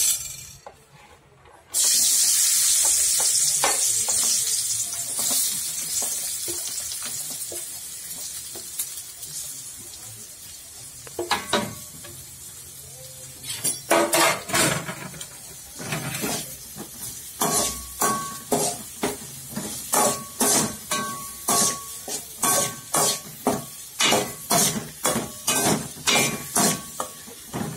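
Chopped onion dropped into hot oil in a metal kadai, setting off a loud sizzle that slowly dies down. From about halfway a spatula stirs and scrapes the onion against the pan in regular strokes, about two a second, some with a short metallic ring, while the frying goes on.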